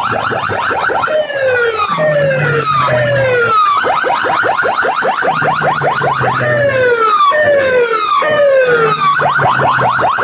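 Loud electronic siren effect blaring from a stacked wall of horn loudspeakers. Runs of fast rising whoops alternate with slower falling swoops in a repeating cycle, with a low steady drone under parts of it.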